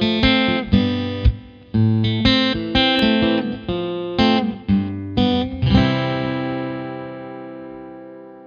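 Music: a guitar playing short chords in a quick rhythm, then a final chord about six seconds in that is left ringing and slowly fades.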